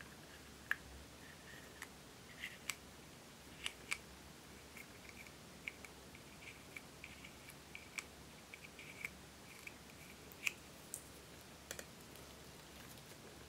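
A plastic spatula scraping a white cosmetic out of a small plastic jar, making irregular light clicks and short scratches.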